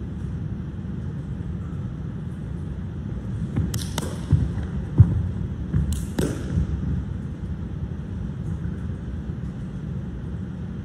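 Feet of a changquan wushu performer thudding and stamping on a carpeted mat, with a few sharp slaps around four and six seconds in, over a steady low rumble. The loudest thud comes about five seconds in.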